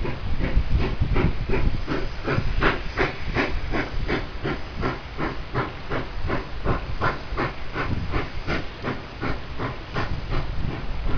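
Nickel Plate Road 765, a 2-8-4 Berkshire steam locomotive, working steadily with an even exhaust beat of about four chuffs a second over a low rumble of the moving train.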